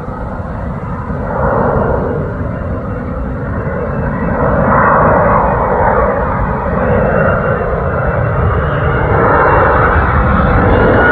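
F-35 fighter jet on approach with landing gear down. Its Pratt & Whitney F135 engine grows steadily louder as the jet nears, a rumble with a faint high whine above it.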